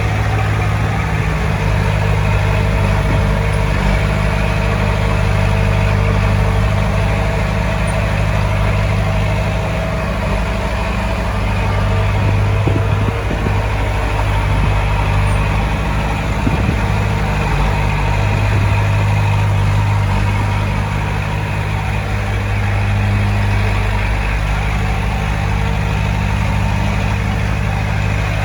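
Heavy diesel engine of an earthmoving machine running steadily, its low hum swelling a little at times.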